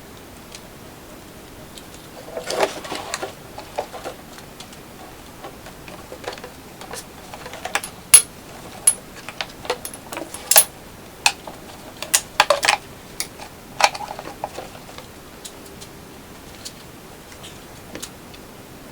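Irregular clicks, taps and knocks of hand work on an aircraft frame: tools and small parts being handled and fitted, some strikes sharp and ringing, in scattered groups with pauses between.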